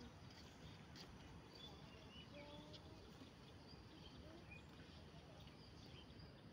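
Near silence: faint outdoor ambience over a low steady hiss, with scattered short bird chirps and whistles.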